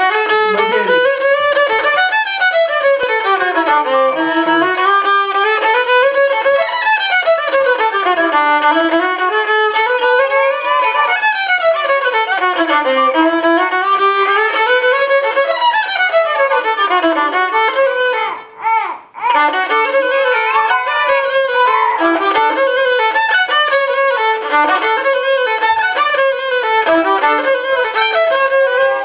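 Violin bowed in runs of notes that climb and fall over and over, like scale practice, with a brief break about two-thirds of the way through.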